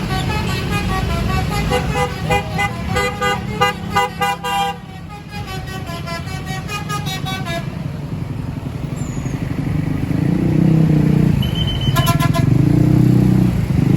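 Basuri telolet multi-tone bus horn playing a fast melody of rapidly changing notes for about seven and a half seconds. After a lull, a vehicle engine runs, with a short horn blast near the end.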